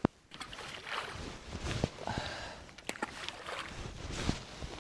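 Irregular splashing, knocks and handling noises at the water's edge, with a sharp click at the start.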